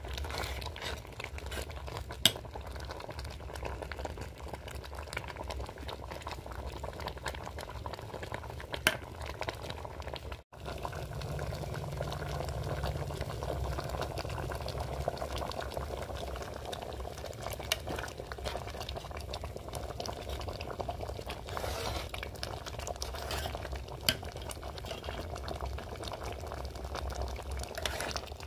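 Dal dhokli bubbling at a simmer in a metal pot, with a few sharp clinks of a spoon against the pot as it is stirred.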